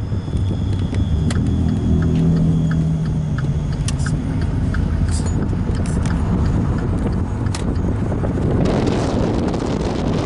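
Car running on the road, heard from inside the cabin as a steady low rumble. A quick run of even ticks comes between about one and four and a half seconds in, and a louder rush of noise near the end.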